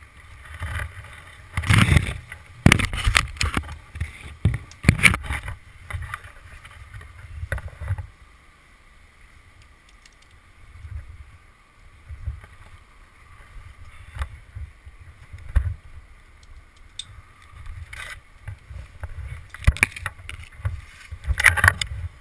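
Irregular knocks and scrapes from a tree climber's spikes, rope and gear against a poplar trunk, over a low wind rumble on the microphone. The knocks come in clusters a couple of seconds in and again near the end, with a quieter stretch in the middle.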